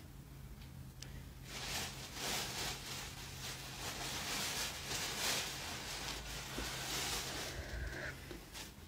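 Rustling of a plastic bag and clothes being rummaged through. It starts about a second and a half in and goes on in uneven bursts for several seconds.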